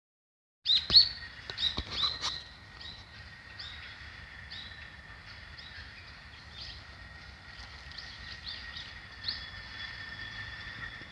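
Small birds chirping in short, repeated calls that fall in pitch, over a steady high tone. A few sharp knocks come near the start.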